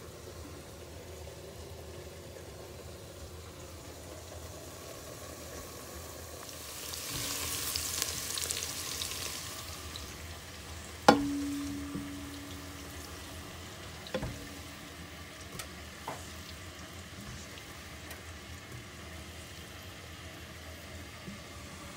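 A spatula stirring and scraping sautéed button mushrooms in a pan, with a hissing scrape for a few seconds. About eleven seconds in comes one sharp knock that rings on with a low hum for a couple of seconds, then two lighter clicks.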